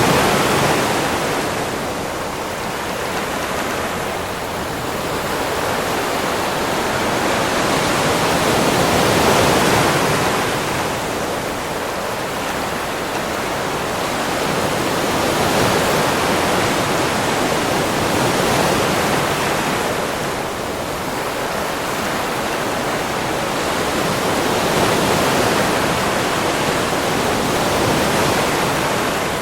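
Ocean waves washing onto a beach: a continuous rush of surf that swells and eases about every five to six seconds.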